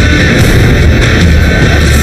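Loud hard-rock music with heavy guitars, played without a break.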